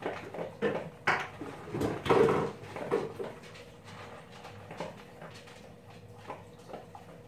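Scattered knocks and clatter of things being handled in a kitchen, loudest about two seconds in, then only a few faint knocks over a thin steady tone.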